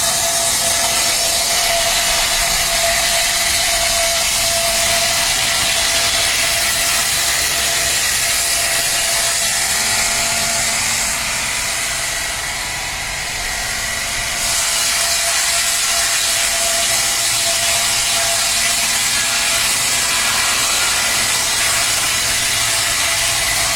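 Sawmill saw blade cutting through coconut lumber: a loud, steady cutting noise with a faint whine, easing a little about halfway through.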